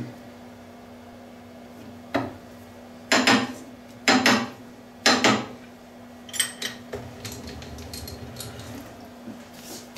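Lathe chuck being tightened with its chuck key to grip a phenolic gear blank from inside its bore: four heavy metallic clanks about a second apart, then a few lighter clinks that ring briefly, over a steady low hum.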